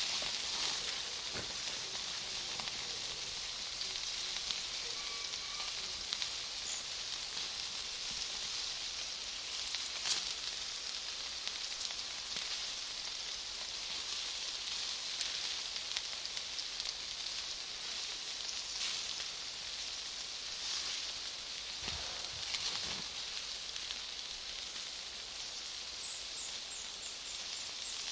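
Bonfire of Iwate cut charcoal and wood burning with a steady sizzling hiss, broken by a few sharp pops.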